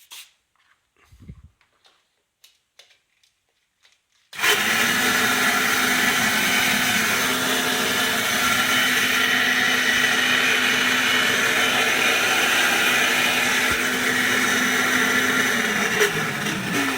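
Soviet Ural-1M vacuum cleaner switched on about four seconds in, after a few faint clicks of handling: its motor starts abruptly and runs loud and steady. Near the end the motor's pitch begins to fall.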